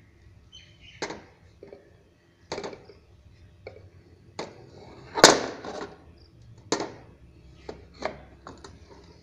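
A Champion wall clock's case knocking and scraping against the wall as it is hung back up. It makes a string of separate knocks and clicks, the loudest a scrape of about a second around the middle.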